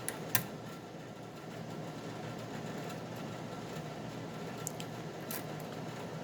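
Small metallic clicks of a hook pick and tension wrench working the pin stacks of a 6-pin Wilka euro cylinder lock: one sharp click a moment in, then a few faint ticks further on, over a steady low background hum.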